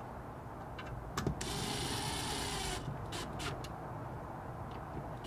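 DeWalt 12V cordless impact driver running for about a second and a half, driving in a cover screw, starting a little over a second in. A few light clicks of the bit on the screw come just before and after it.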